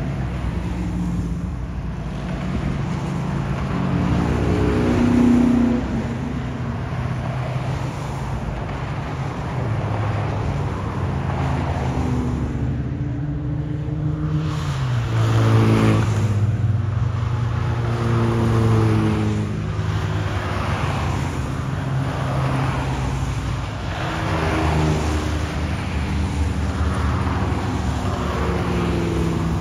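Classic cars driving past one after another at parade pace, each engine rising as it nears and fading as it goes. The loudest pass-bys come about five seconds in and again around sixteen to nineteen seconds.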